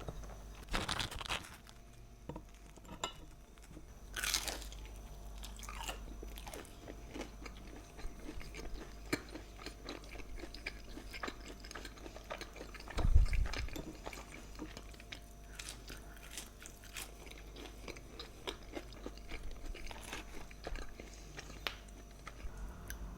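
A person chewing and crunching food close to the microphone, with many small crackling mouth clicks and a few louder crunchy bites. About halfway through there is one loud, dull thump.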